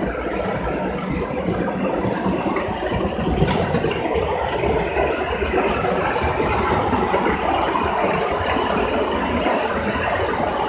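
Tinplate O gauge model trains running on metal track: a steady rattling rumble of wheels and motors, with a couple of sharp clicks about three and a half and five seconds in.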